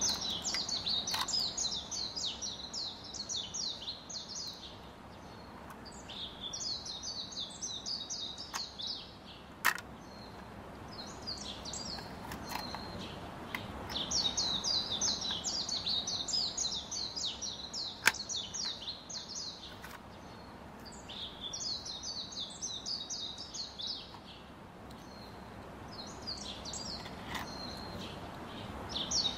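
Small birds chirping in repeated runs of rapid high chirps, each a few seconds long with short pauses between, and a few sharp clicks of plastic toy track pieces being fitted together.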